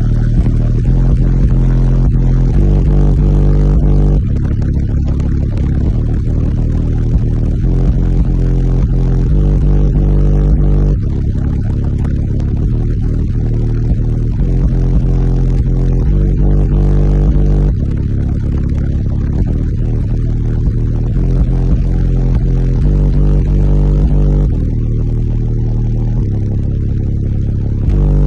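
Car audio system's SoundQubed subwoofers playing heavy bass at high volume: deep held bass notes that change every few seconds.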